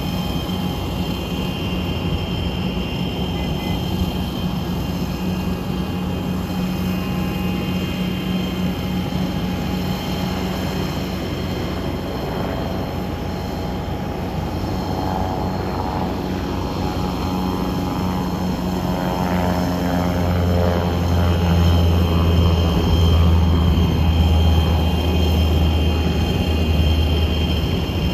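Twin Rolls-Royce AE 3007 turbofans of an Embraer ERJ-145 running at taxi power: a steady high turbine whine over a hum, with a deeper rumble growing louder in the second half as the jet comes nearer.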